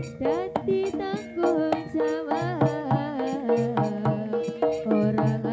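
Javanese jaranan gamelan music: a quick, steady run of kendang drum strokes under a sliding, bending melody line.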